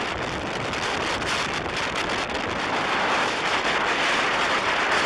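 Strong storm wind rushing over the microphone, with surf breaking on the beach beneath it: a steady, loud roar of noise with small gusty buffets.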